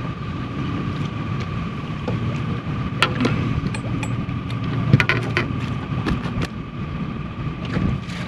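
On-board fishing-boat sound: a steady high-pitched whine over a low rumble, with a few sharp clicks and knocks about three seconds in and again around five seconds.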